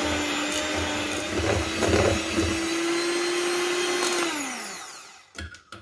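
Maxima electric hand mixer running on its highest speed, its beaters whisking eggs and sugar into a thick foam in a stainless steel bowl with a steady motor whine. A little after four seconds in it is switched off, and the whine falls in pitch and fades as the motor spins down.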